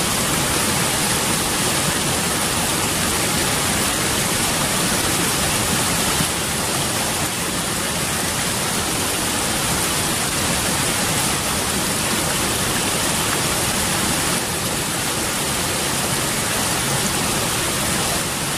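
Small mountain stream cascading over rocks: a steady rush of water.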